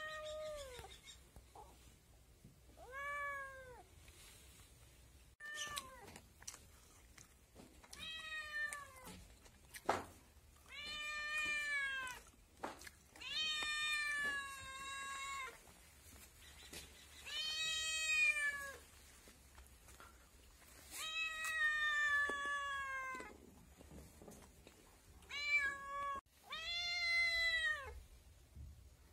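Domestic kitten meowing again and again, about ten calls, each rising and then falling in pitch. Some are short and some are drawn out for one to two seconds. There are a few sharp clicks between the calls.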